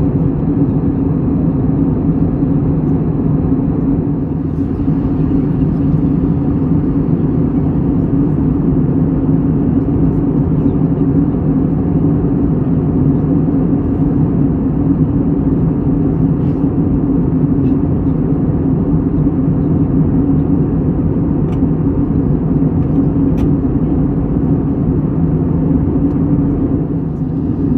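Steady, unbroken low rumble of continuous noise, with its weight in the low range and no surges or breaks.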